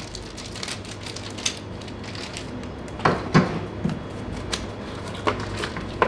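Cardboard product boxes being opened and unpacked by hand: scattered crackles and small knocks of packaging, with louder knocks about three seconds in and again near the end, over a steady low hum.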